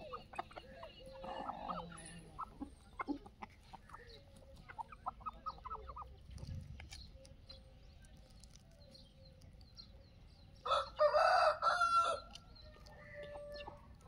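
Free-range desi chickens clucking in short runs of quick calls, then a rooster crowing loudly once, about ten and a half seconds in, with a fainter call just after.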